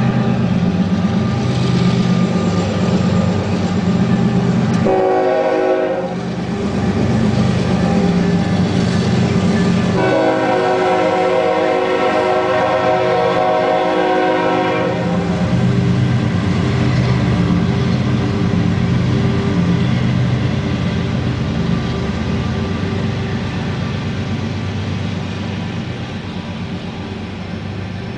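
Freight train diesel locomotives approaching and passing over a steady engine rumble. The horn sounds a short blast about five seconds in and a long blast from about ten to fifteen seconds. Ballast hopper cars then roll past, and the rumble slowly fades.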